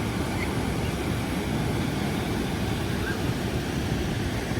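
Steady rushing noise with a heavy low rumble.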